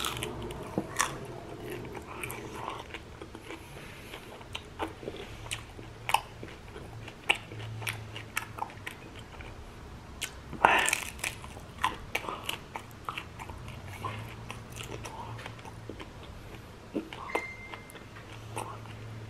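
Crisp batter-fried tikka prawns being bitten and chewed close to the microphone, with repeated crunches and crackles throughout. The loudest crunching bite comes a little past halfway.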